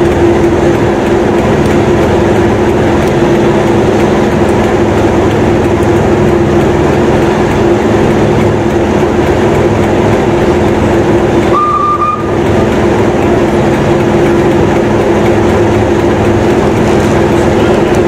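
A steam-hauled train rolling slowly past along the track: a loud, steady rolling noise with a constant hum. About twelve seconds in there is one short high-pitched tone that rises slightly.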